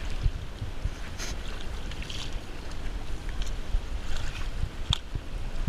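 Kayak paddles dipping and splashing in the sea, with a steady low rumble of wind on the camera's microphone and a couple of sharper splashes.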